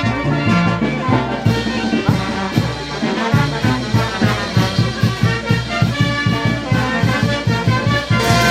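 Brass band playing live: trumpets and trombones carrying the melody over a steady, pulsing low beat.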